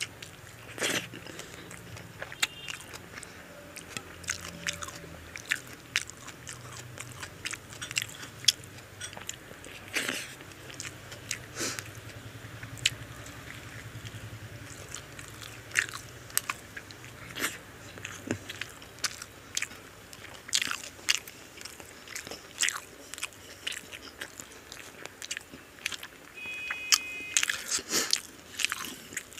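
Close-miked chewing and mouth noises of a person eating biryani by hand: irregular wet smacks and sharp clicks, several every few seconds.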